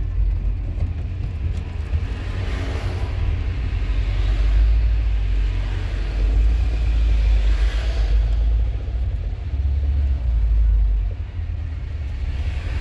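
Low, steady rumble of a car, heard from inside its cabin as it rolls slowly along a street.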